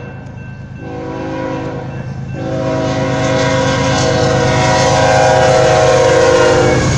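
BNSF freight locomotive's air horn sounding for a grade crossing: a short blast, then a longer one held for about four and a half seconds as the locomotive reaches the crossing. Underneath is the low rumble of the approaching diesel locomotives, growing louder.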